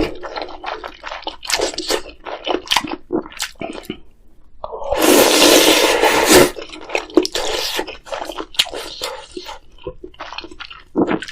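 Ramyeon being eaten close to the microphone: scattered wet chewing clicks, then one long loud slurp of noodles lasting under two seconds, then more chewing.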